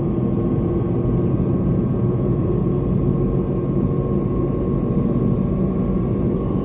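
Steady road and engine noise of a Toyota Corolla being driven at an even speed, with a thin steady tone running through it.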